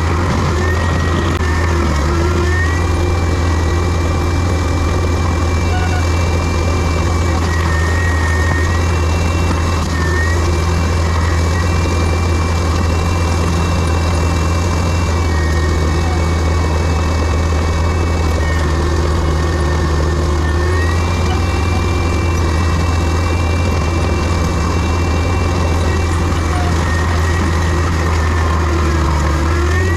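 Heavy diesel land-clearing machine running steadily with a loud low hum. A thin high whine above it steps up and down in pitch every few seconds.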